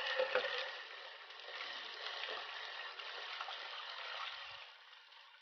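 Running water splashing as saga leaves are rinsed, easing off near the end.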